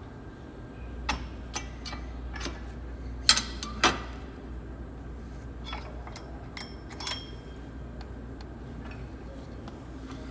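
Metal clinks and knocks from a weight-stack leg machine being worked through reps, irregular and several a second at times, the loudest a pair about three and four seconds in. A steady low hum runs under them.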